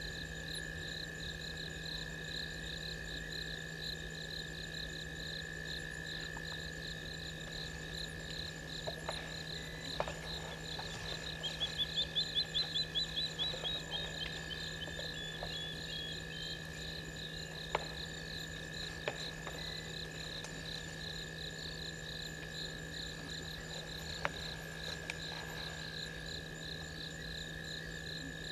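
Night chorus of frogs and insects: a steady pulsing trill and a steady shrill tone over a low hum, with a louder run of quick chirps for a few seconds about midway. A few faint sharp cracks stand out now and then.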